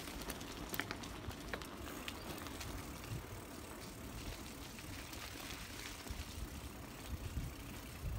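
Bicycle riding along a paved path strewn with fallen leaves: steady tyre and wind noise with a low rumble, and scattered light clicks.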